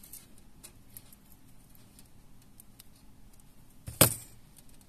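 Faint small ticks of thin wire being handled and bent into a loop by hand, then one sharp click about four seconds in as a pair of pliers is put down on the table.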